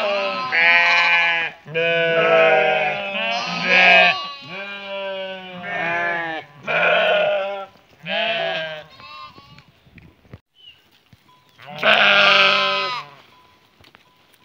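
Flock of sheep bleating, several animals calling over one another in a string of loud, wavering bleats. There is a lull about nine seconds in, then one more loud bleat.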